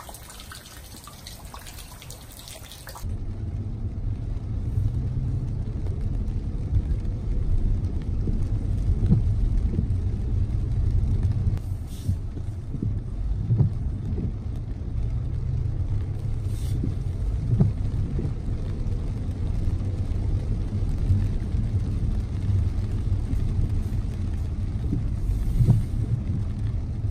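A car driving on a wet, slush-covered road, heard from inside the cabin: a steady low rumble of engine and tyres. It starts about three seconds in, after a short stretch of quieter hiss from falling rain and sleet.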